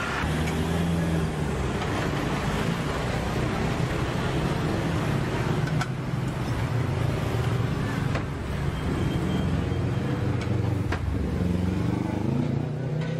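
Road traffic: a motor vehicle's engine running steadily close by, a low even hum, with a few short clinks.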